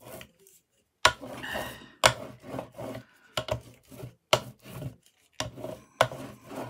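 A hand brayer rolled back and forth over paper through wet metallic acrylic paint, giving a sticky rasping rub. The strokes come about once a second, each starting sharply and then fading.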